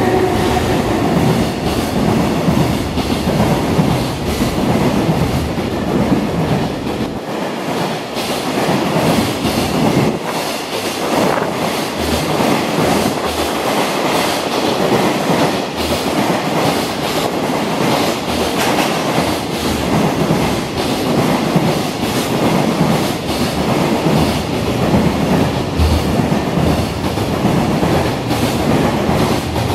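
Freight train's container wagons passing at speed, their wheels clattering over rail joints in a steady run of clicks over a continuous rolling rumble.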